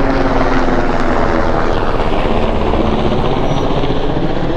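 Helicopter flying overhead, its rotor and engine loud and steady, the pitch sinking slightly as it passes.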